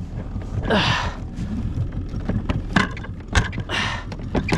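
Boat motor running with a steady low hum. A short rustling noise comes about a second in, and a few sharp knocks or clicks follow in the second half.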